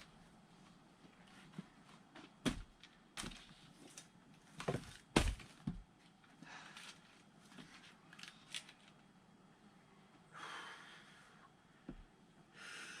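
Firewood being split by hand: a string of sharp knocks and thuds from wood being struck, the heaviest about five seconds in. Two longer rushes of breath follow near the end.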